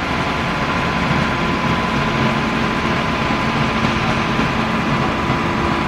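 Fire-fighting tanker truck's engine running steadily, a low drone with a steady hiss over it.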